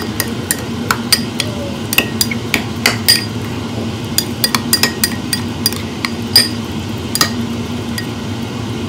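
Metal spoon stirring ginger and spring onion oil sauce in a ceramic bowl, clinking against the bowl in quick, irregular taps that thin out near the end. A steady low hum runs underneath.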